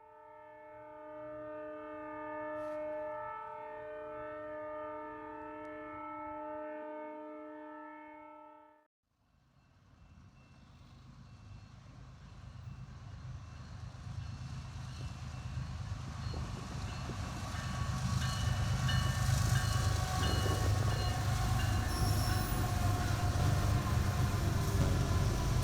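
Freight locomotive air horn sounding a steady multi-note chord for about nine seconds, then, after a sudden cut, a passing freight train's rumble and wheel noise building steadily louder, with faint high wheel squeals.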